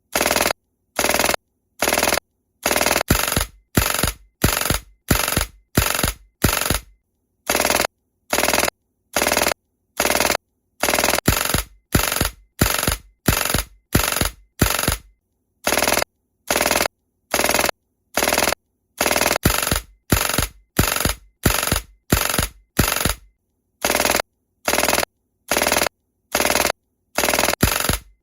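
Marzen M93R gas airsoft pistol firing shot after shot at a steady pace, about one and a half a second, each shot a sharp crack that dies away quickly, with a few brief pauses in the firing.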